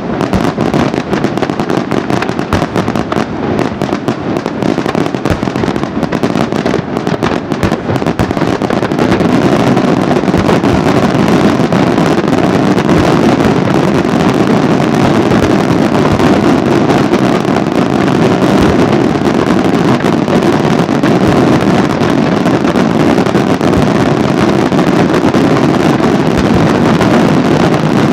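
Daytime fireworks display: a dense run of rapid crackling bangs that about nine seconds in swells into a louder, continuous crackling barrage.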